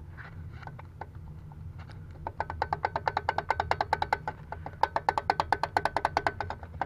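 Hand ratchet wrench clicking rapidly, about ten clicks a second, in two runs with a short break, as a 14 mm socket spins off a connecting-rod cap nut. Each click has a light metallic ring.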